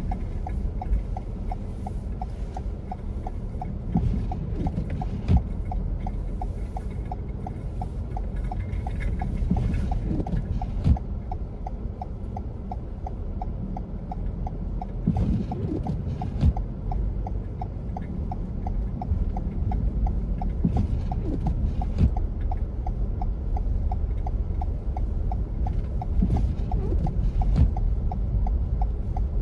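Car driving slowly over a snow-covered road, heard from inside the cabin: a steady low rumble of tyres and engine, with a regular light ticking throughout and a few sharper knocks.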